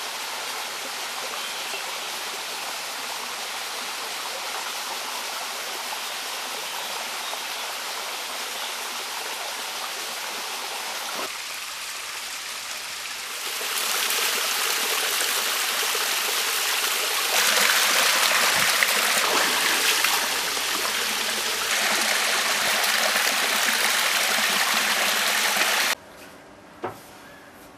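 Water of a small stream cascading over rocks, a steady rush that grows louder about halfway through and cuts off suddenly near the end.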